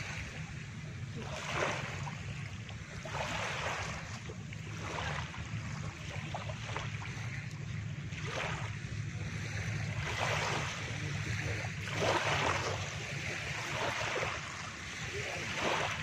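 Small waves breaking and washing up onto a beach, one surge of hiss every second or two, over a steady low rumble.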